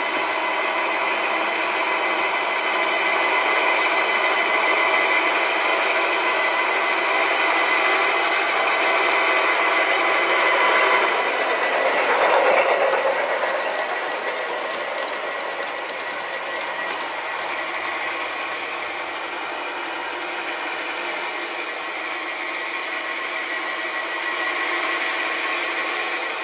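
Large-scale model Dash 9 diesel locomotive and freight cars running on garden-railway track: a steady rattling, whirring run of wheels on rail and gear motor, swelling louder for a moment a little before halfway as the train passes close.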